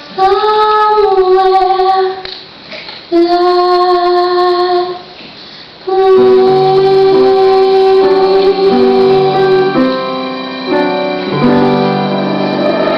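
A woman's voice singing a slow song in long held notes over piano accompaniment, in three phrases with short pauses between them; the last note is held for about four seconds.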